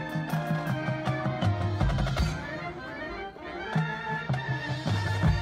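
Marching band playing live: winds holding layered chords over repeated low notes, with scattered percussion strikes from the band and its front-ensemble percussion.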